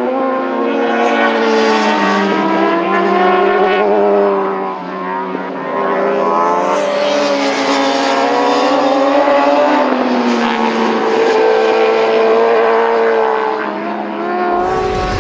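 Racing sport-motorcycle engines running hard on a circuit, their pitch rising and falling as the bikes accelerate, change gear and slow for corners. The sound changes abruptly near the end, with a deeper rumble coming in.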